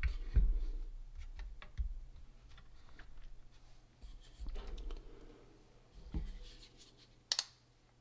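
Handling noise from a mini PC's bottom cover being fitted and set down on a work mat, with small screws picked up: scattered light clicks and soft knocks, and a sharper click near the end.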